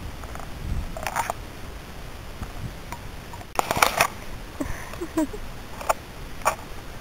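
Close handling noise: scattered rustles and clicks as plastic model horses are moved about in grass, with the loudest cluster a little past halfway and single clicks near the start and end.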